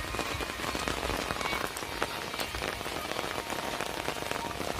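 Heavy rain falling steadily, with a dense spread of sharp drop ticks close by.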